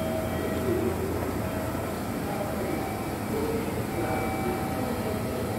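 Steady hum and hiss of a stationary JR Kyushu 885 series electric train, its onboard equipment running beside the platform, with faint brief tones coming and going.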